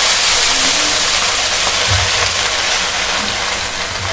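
Freshly washed coriander and mint leaves sizzling in hot oil in a kadai, a loud steady hiss that slowly dies down, with a dull knock about two seconds in.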